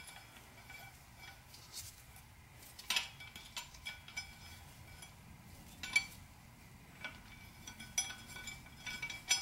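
Light metal clinks of a wrench and bolts against a steel flywheel as a clutch bolt is fitted by hand to lock the flywheel: a few separate sharp clicks, the strongest about three and six seconds in.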